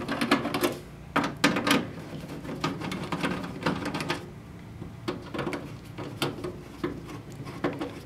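Hand screwdriver backing out the screws of a Sun Fire V480 server's metal top cover: irregular metallic clicks and scraping as the bit turns in the screw heads.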